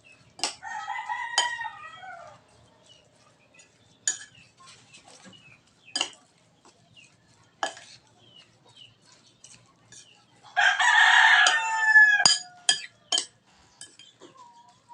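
A rooster crows twice, once about a second in and again near the end, a long pitched call that falls away at its close. Between the crows a metal spoon clinks now and then against the mixing bowl as shrimp-and-egg batter is stirred.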